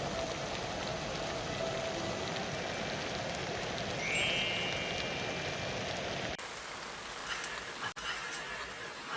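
Meat frying in a pan of hot oil, the fat sizzling and spattering steadily.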